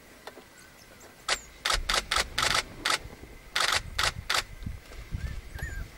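Digital SLR camera shutter firing in quick bursts of sharp clicks, some in close pairs, from about one second in to just past the four-second mark.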